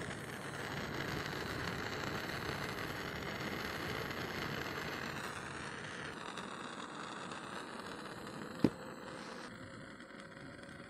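Steady outdoor noise of distant road traffic, easing off after about six seconds, with one sharp click about nine seconds in.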